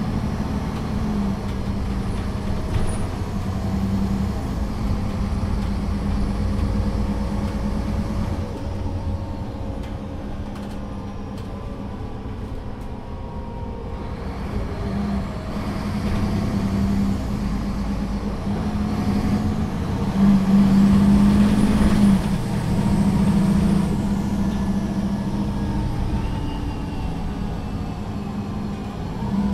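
Solaris Urbino III 12 city bus heard from inside while it drives, its engine running steadily. About eighteen seconds in, the driver floors it for a hard kickdown: the automatic gearbox drops a gear and the engine revs up, loudest a few seconds later.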